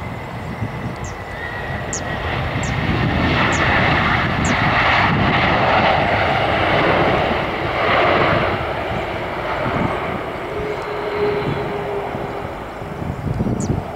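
Airbus A321 airliner's jet engines during the landing roll just after touchdown: a broad roar that swells to its loudest for a few seconds in the middle and then eases off, as when reverse thrust is applied and then cut back.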